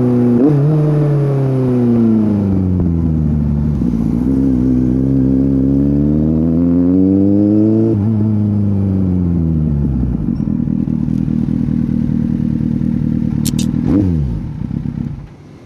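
Kawasaki Z800's inline-four engine through a Scorpion exhaust: it shifts up, eases off, pulls up through the revs again, then drops to a steady idle. Near the end it gives one short rev blip and the engine stops.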